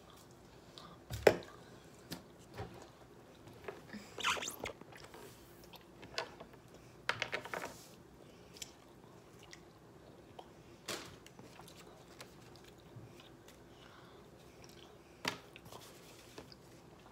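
Clear plastic packaging and small objects handled on a tabletop: scattered knocks and clicks, the sharpest about a second in, with short bursts of crinkling around four and seven seconds in.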